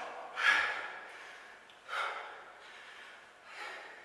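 A man breathing hard from exertion during a set of air squats: three short, sharp breaths about a second and a half apart, the first the loudest.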